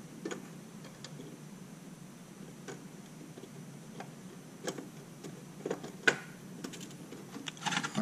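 A handful of faint, irregular clicks and taps as DDR4 registered DIMM memory modules are set into the motherboard's DIMM slots, placed but not yet pressed fully home.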